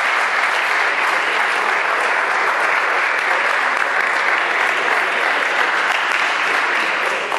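Applause: many hands clapping in a steady, dense patter.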